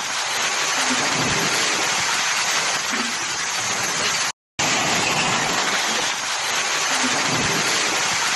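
Storm wind and heavy rain: a steady, loud rushing noise, broken by a short gap about four seconds in.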